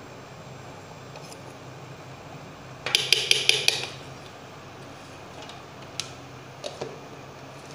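A steel spoon knocking and scraping against a stainless-steel mixer-grinder jar in a quick run of five or six sharp clinks about three seconds in, then a few lighter clicks near the end as the jar's plastic lid is handled.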